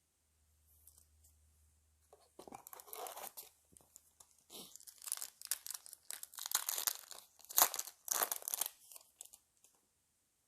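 Foil booster-pack wrapper crinkling and being torn open: a string of crackly tearing and crunching bursts that starts about two seconds in and goes on for most of the rest, loudest near the end.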